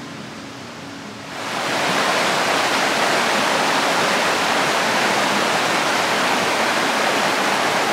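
Creek water rushing and splashing over boulders in a small cascade, a loud steady rush that comes in suddenly about a second in. Before that, soft guitar music fades out.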